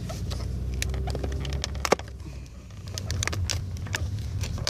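Cardboard box being handled and pulled open by hand: a run of irregular crackles and clicks, with one sharp click about two seconds in. A steady low hum from the car runs underneath.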